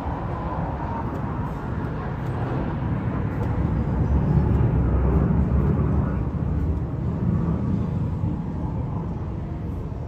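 F-15 fighter jet climbing away after takeoff, its jet engines making a broad rumble that swells to its loudest about halfway through and then slowly fades.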